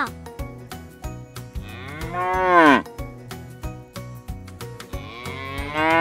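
A cow mooing twice, about three seconds apart. Each moo is a long call that drops in pitch at the end. Light background music with a steady beat plays underneath.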